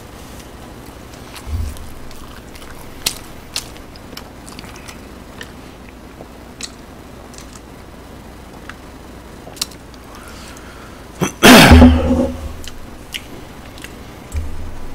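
Small clicks and mouth noises from a person eating and sipping a drink through a straw at a close microphone. About eleven seconds in comes one loud, brief throat sound that falls in pitch.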